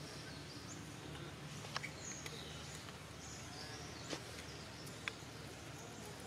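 Outdoor ambience with faint, distant bird chirps over a steady low hum, and a few sharp clicks scattered through it.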